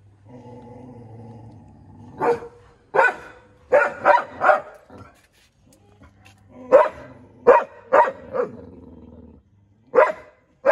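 A large dog barking hard in short bursts: a run of about five barks, then four more a couple of seconds later, and one more near the end, over a low steady hum.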